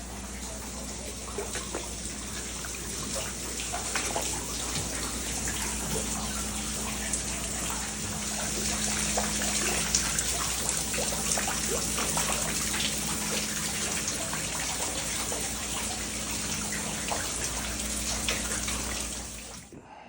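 Water running and splashing steadily from a burst, frozen-cracked pipe into a flooded basement, with many small splashes on top of a steady rush; it cuts off suddenly near the end.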